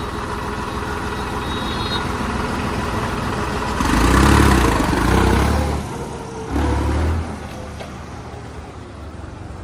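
New Holland 3630 diesel tractor engine running, revving up hard about four seconds in for nearly two seconds, then again briefly a little later before dropping back.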